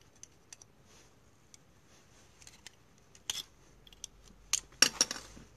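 Small hard plastic clicks and snaps as a smoke detector's circuit board and housing are handled and pried at with a screwdriver. The clicks are faint at first, then a couple of louder ones, then a quick run of the loudest near the end.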